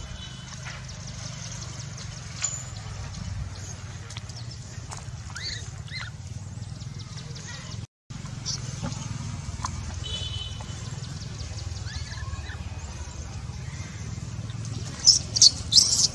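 Newborn macaque making faint squeaks, then a quick series of four or five loud, high-pitched cries near the end, over a steady low hum.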